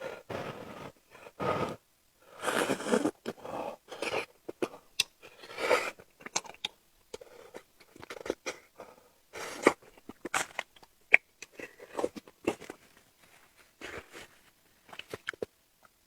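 A person chewing and biting food close to the microphone, with irregular crunches, wet smacking sounds and sharp clicks.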